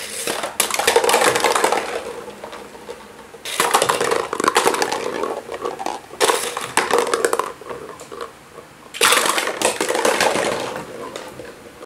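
Hollow plastic jack-o'-lantern pails clattering and tumbling onto a wooden floor as a toy car crashes into their stacks. Four loud crashes, each a rattling clatter that dies away over a couple of seconds.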